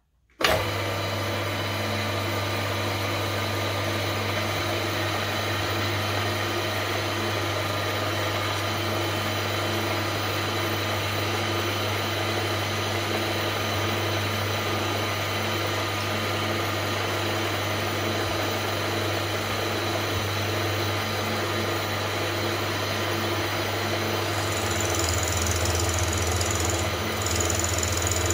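Milling machine switched on about half a second in, its spindle motor running with a steady hum. Near the end a high-pitched tone joins as the end mill begins cutting the top face of the brass piece.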